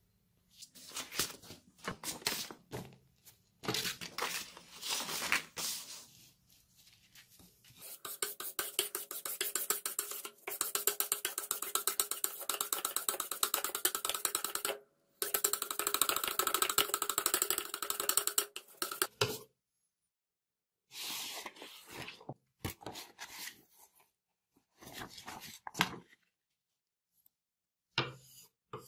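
Steel hunting-knife blade scraped back and forth on a sharpening stone in quick, even strokes, stopping and starting several times. A steady tone runs under the longest, fastest stretch of strokes.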